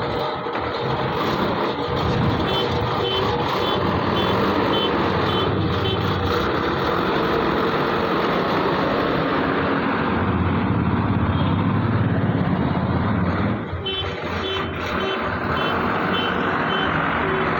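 JCB 3DX backhoe loader's diesel engine running steadily, with its reversing alarm beeping in a quick series about two seconds in and again near the end as it backs up.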